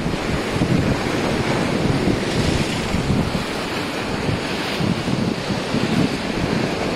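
Small waves washing and breaking against the concrete edge of a jetty, with wind buffeting the microphone in an uneven low rumble. The wash of water swells about two seconds in.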